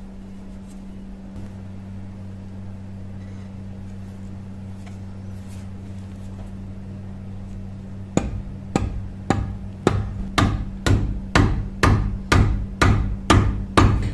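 A steady low hum, then, about eight seconds in, a hammer starts striking at an even pace of about two blows a second, a dozen or so sharp knocks. The blows are driving the old forged hammer head down onto its new wooden handle.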